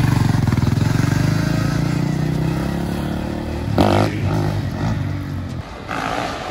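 Dirt bike engine running at a steady throttle, its note fading away over the second half. There is a brief sharp clatter a little past halfway.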